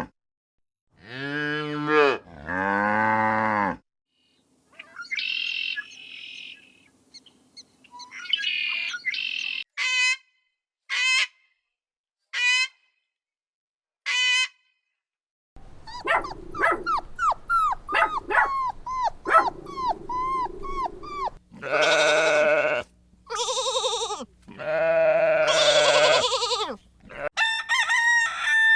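A run of different farm animal calls with silent gaps between them. It starts with long pitched calls, then shorter calls, then a few short repeated calls, then a burst of quick short calls, and ends with several long, loud pitched calls.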